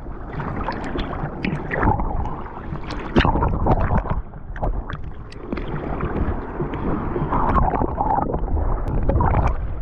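Seawater splashing and churning close to the camera at the surface, in irregular sloshes and gurgles.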